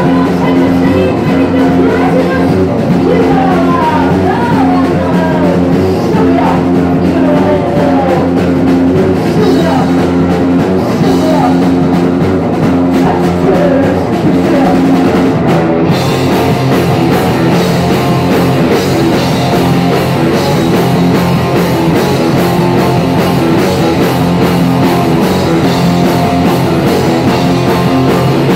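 Punk rock'n'roll band playing live and loud: electric guitars, bass and drum kit with singing. About halfway through, the band gets fuller and brighter.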